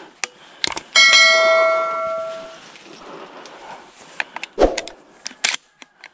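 A single bell-like ding from a subscribe-button animation sound effect, ringing for about a second and a half and fading away. A few sharp clicks come before and after it.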